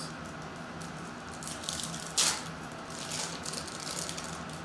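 Foil trading-card pack wrapper being torn open and crinkled by hand, with one sharp rip a little over two seconds in.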